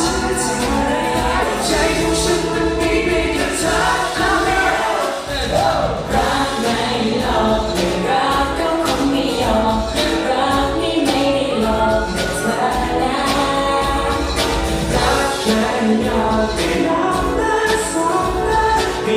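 Live pop song played loud over a concert sound system, with several voices singing over a steady beat.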